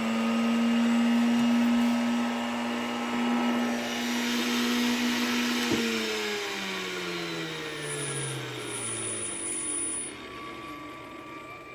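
Damaged commercial vacuum cleaner's electric motor running with a steady whine. After a click about six seconds in, its pitch falls steadily as the motor winds down, and the sound fades near the end.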